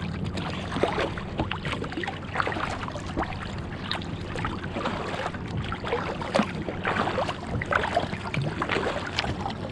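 Kayak paddling: water splashing and dripping from the paddle blades on each stroke, many small irregular splashes over a steady wash of water along the hull.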